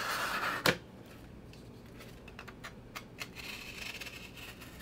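A knife cutting through a cardboard sheet. A loud scraping cut ends in a sharp click under a second in, then come scattered light clicks and a second, fainter scraping cut near the end.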